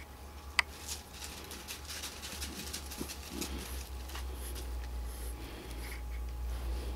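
Light scratchy clicks and crunches of a puppy's paws on gravel, with one sharp click about half a second in, over a steady low hum.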